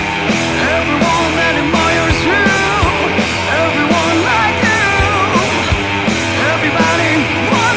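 Rock music with a steady beat and a wavering melody line.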